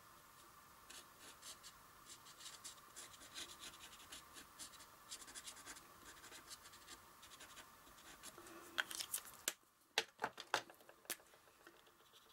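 Marker tip scratching faintly on textured watercolour paper in many short strokes as a small star is drawn. About nine to eleven seconds in, a few sharper clicks and taps as the marker is swapped for another pen.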